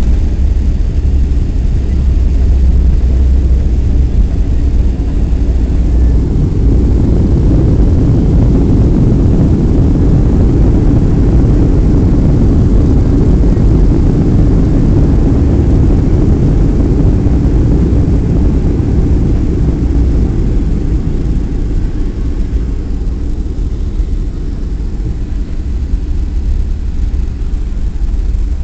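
Boeing 737-300 with CFM56 engines heard from inside the cabin during the landing rollout: a loud, steady low rumble of engines and wheels on the runway, swelling through the middle and easing off near the end as the plane slows.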